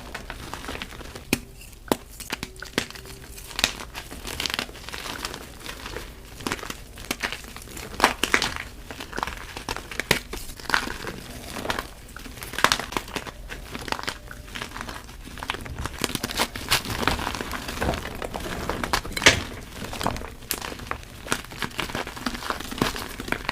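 Soft gym chalk reforms being crushed, giving dense, irregular crunches and crackles.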